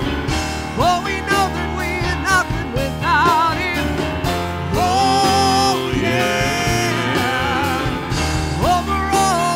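Live church worship band playing a praise song, with singers holding the melody in wavering, vibrato-laden lines over the accompaniment.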